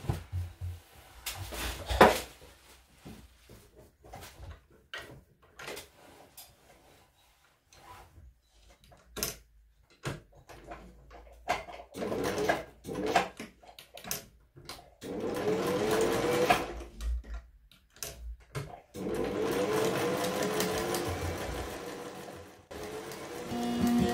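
Electric sewing machine stitching in short bursts, then two longer runs of a few seconds each in the second half. Scattered clicks and knocks come before the stitching starts.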